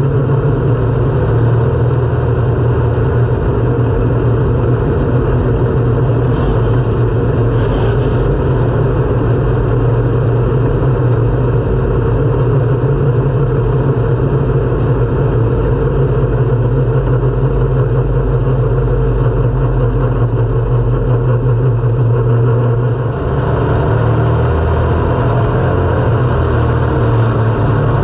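Engine of a Pure Stock dirt-track race car heard from inside the cockpit, running hard at a steady pitch. About 23 seconds in, the note dips briefly, then comes back.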